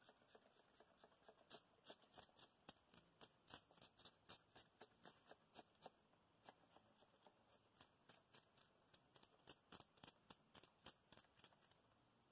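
A quick series of faint, sharp clicks, about three a second, starting about a second in and stopping near the end.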